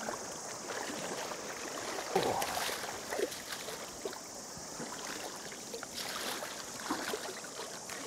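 Water splashing in a shallow, stony river as a wading angler walks through it and a hooked trout thrashes in a landing net, over the steady rush of the stream. The loudest splash comes about two seconds in.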